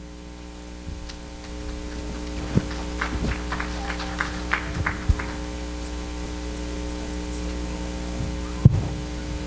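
Steady electrical mains hum on the church's sound system, with a run of small clicks and knocks about three to five seconds in and one sharp knock near the end.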